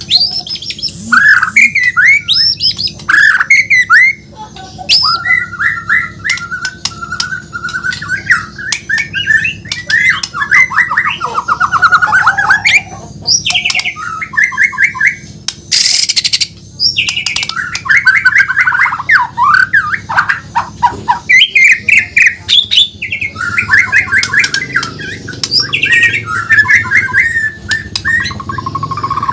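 Murai batu Borneo (Bornean white-rumped shama) singing a long, varied song of rapid trills, slurred whistles and chattering notes. About halfway through there is one harsh, noisy call.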